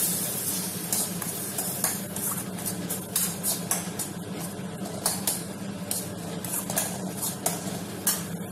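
Slotted metal spatula scraping and clinking against a stainless steel kadai as a wet onion-tomato masala is stirred. The clicks come irregularly, a few a second, over a steady low hum.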